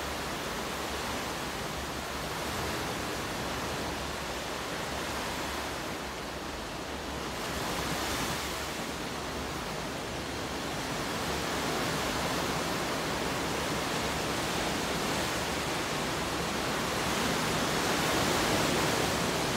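Small ocean waves breaking and washing up a sandy beach: a steady rush of surf that swells louder a few times as waves come in.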